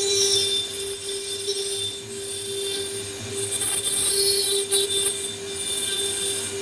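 CNC lining drawing and cutting machine running, with a steady hum and a high, shifting whine and scrape from its cutting tool working the metal.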